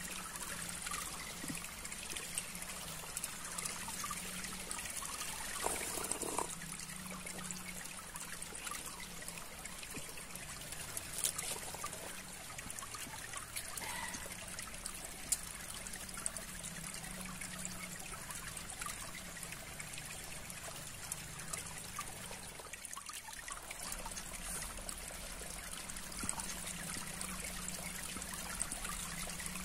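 Steady outdoor background noise, like trickling water, over a constant low hum that drops out briefly about two-thirds of the way through, with a few faint ticks.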